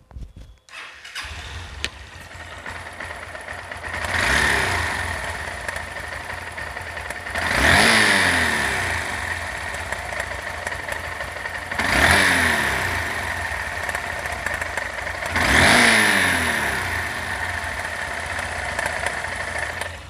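Honda Hornet 160R single-cylinder engine started, then idling and revved four times, rising and falling about every four seconds. It has an abnormal internal mechanical noise that the mechanic likens to the engine breaking apart inside and traces to a worn timing chain and adjuster and a cam that sticks in its bearing.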